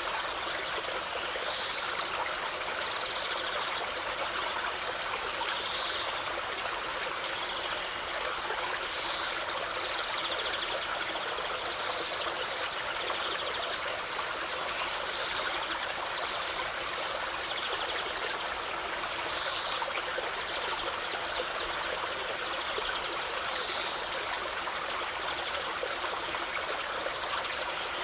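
River water flowing over stones, a steady even rush of running water. A few faint, short high notes come through it now and then.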